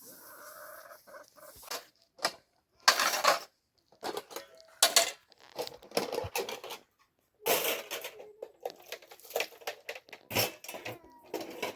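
Irregular clatter and knocks of household objects being handled, a dozen or so short bursts with brief quiet gaps between them.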